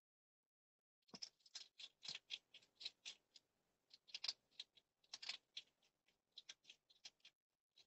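Hedgehog crunching dry food pellets from a bowl: quick runs of small crisp crunches, several a second, starting about a second in with brief pauses between runs.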